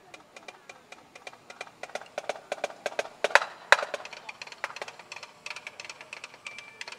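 Wooden drumsticks clicking in a quick rhythm, part of a snare solo. The clicks grow denser and louder toward the middle, with a few sharper cracks about halfway through.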